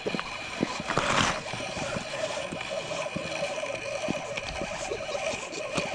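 River water rushing and gurgling steadily, with a brief louder surge about a second in.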